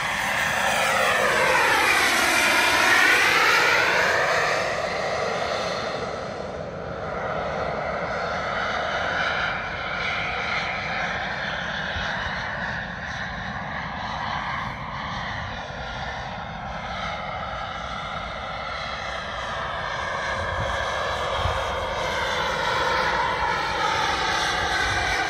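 Twin KingTech K-85 model jet turbines of a radio-controlled A-10 Warthog running in flight. The sound swells into a close pass with a falling-then-rising sweep about two to three seconds in, and the plane passes close again near the end.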